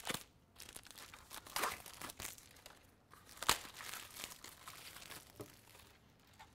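Clear plastic wrapping crinkling and tearing as it is pulled off a spool of 3D-printer filament: a scatter of quiet crackles, with one sharper snap about three and a half seconds in.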